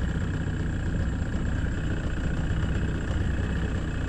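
Boat motor running steadily at an even pitch.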